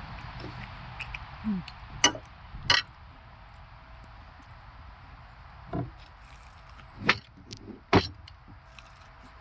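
A handful of short, sharp clicks and taps, about five spread over several seconds, over a steady background hiss.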